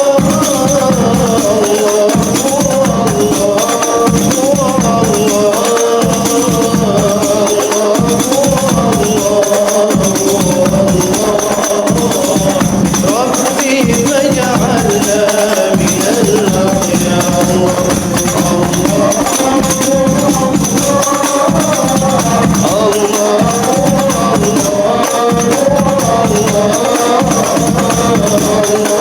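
Hadroh ensemble performing sholawat: a sung melody, with several voices joining in, over a steady rhythm of rebana frame drums and jingles.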